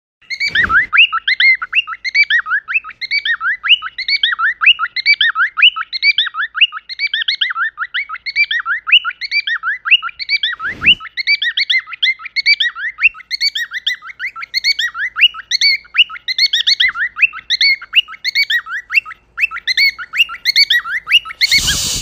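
A cockatiel chirping and warbling without a break, in rapid repeated notes. A soft thump comes about half a second in and another about halfway through, and a short rush of noise comes near the end.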